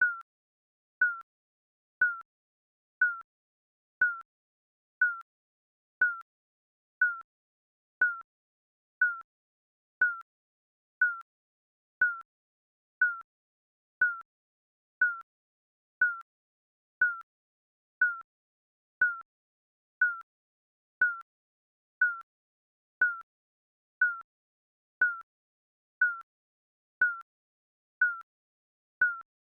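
Digital countdown timer beeping once a second: a short, single-pitched electronic beep each second, with silence between.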